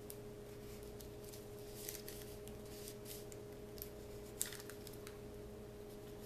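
Soft rustling and crinkling of thin paper being rolled and twisted around a wooden cartridge former to make a paper rifle cartridge, with a few brief rustles about two seconds in and again a little after four seconds, over a steady faint hum.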